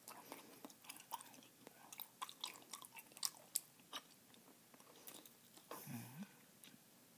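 Close-miked chewing of a wad of Bazooka bubble gum: faint, irregular wet clicks and smacks from the mouth.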